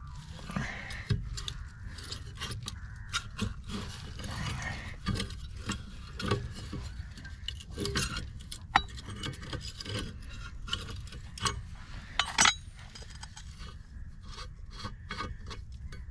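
Irregular metal clinks, rubs and scrapes as a loose propeller nut, tab washer and propeller are worked off a boat's propeller shaft by hand. A sharper ringing metal clink comes near the end. The nut is loose enough that only the tab washer has been holding it on.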